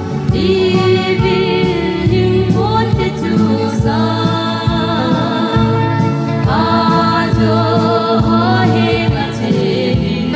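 Christian gospel song: a sung melody over a band backing with a bass line and a steady drum beat.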